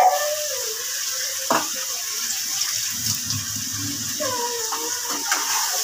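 Water running from a kitchen tap into a sink, a steady hiss, with a single knock about a second and a half in.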